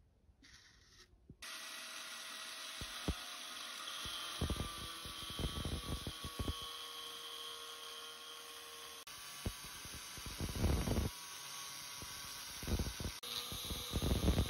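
Angle grinder with a cutoff disc running at a steady whine, which starts abruptly about a second and a half in. It cuts into a rusted steel bearing ring in repeated rough grinding bursts, louder whenever the disc bites.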